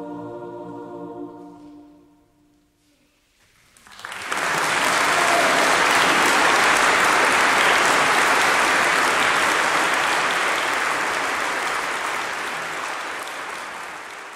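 A choir holds its final chord, which dies away into a brief hush. About four seconds in, an audience breaks into loud, steady applause, which fades near the end.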